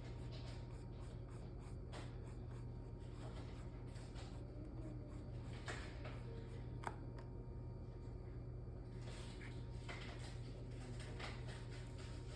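Faint scratchy brush strokes and small handling clicks of painting supplies over a steady low room hum, with a few sharp ticks, the sharpest about seven seconds in.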